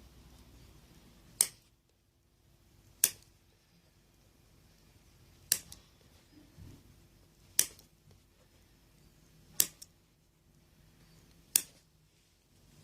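Six sharp clicks, one about every two seconds.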